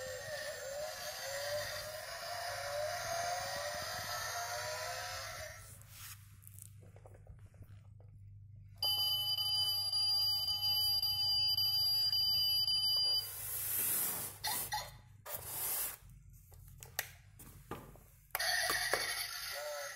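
A toy sports car's built-in sound chip plays electronic sound effects. There is a warbling tone for the first few seconds, then a loud steady electronic beep held for about four seconds in the middle. Handling and rustling noises from the foam packing follow near the end.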